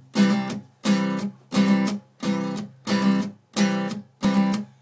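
Song intro on a strummed guitar: seven chords in a steady rhythm, about one and a half a second, each ringing out briefly before the next.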